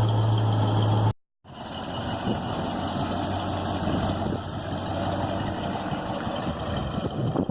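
1970 Mustang Mach 1's 428 Cobra Jet V8 idling through its exhaust. The sound cuts out completely for a moment about a second in, then the idle resumes with an uneven, lumpy beat.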